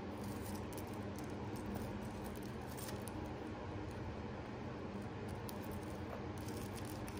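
Faint, scattered light clicks of a small metal jewelry chain being handled and untangled, over a steady low room hum.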